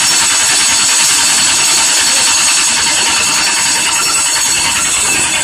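Carbureted V8 race engine of a NASCAR-style race truck running, loud and steady, just after start-up.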